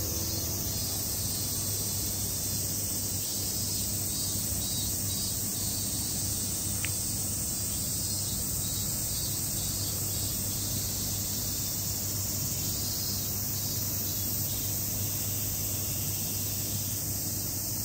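Steady, high-pitched insect chorus over a low outdoor hum, unchanging throughout, with one short high chirp about seven seconds in.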